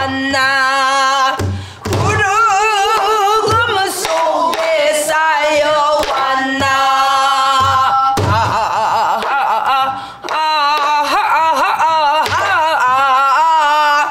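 A woman singing a Korean Namdo folk-song refrain on drawn-out vocables ("a-ha-a-a… eo-gi-ya") with wide vibrato and sliding notes, punctuated by a few sparse stick strokes on a buk barrel drum.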